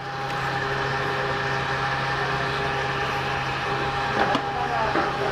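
Steady mechanical hum with constant low and mid-pitched tones, and a short knock about four seconds in.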